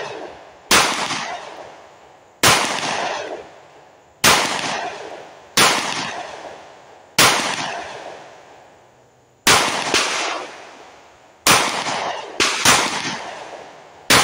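Ruger Max-9 9mm micro-compact pistol fired in aimed single shots, about ten in all, one every second or two, each followed by a long echo trailing off; two of the shots come as quick pairs in the second half.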